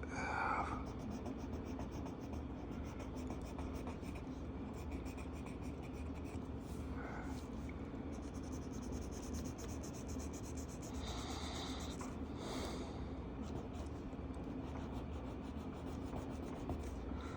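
Marker tip rubbing and scratching across paper in short colouring strokes, over a steady low hum.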